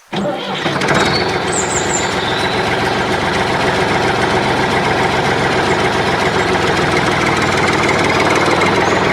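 Small electric motor of a power tool or miniature machine switching on and running steadily.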